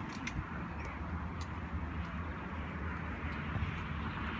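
Steady outdoor background noise, a continuous low rumble with a few faint scattered ticks.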